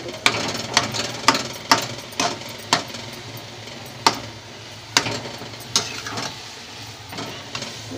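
Metal spatula knocking and scraping against a steel kadhai while stirring a watery potato curry: sharp clacks about twice a second for the first three seconds, then a few scattered knocks, over a steady low hum.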